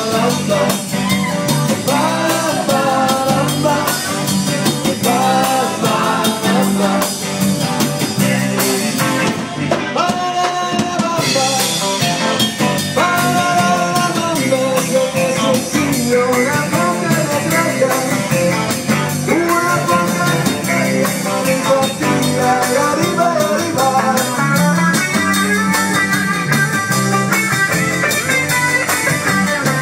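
Live band playing an early-1960s rock-and-roll song: electric guitars, bass and drum kit with lead vocals over a steady beat.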